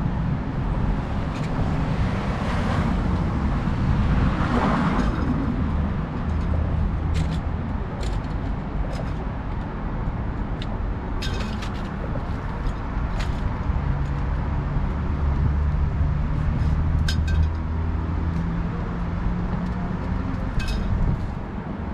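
Motor vehicle engine running with street traffic noise, a low hum growing stronger for a few seconds after the middle, with scattered light clicks.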